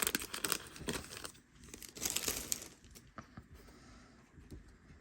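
Foil booster-pack wrapper of trading cards crinkling and tearing as it is opened. The crackle is busiest in the first second and again around two seconds in, then thins to a few faint ticks.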